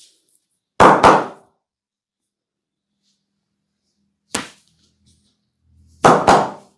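Loud hand slaps of a barber's massage: two quick slaps about a second in, a single sharper one near four seconds, and another pair near the end.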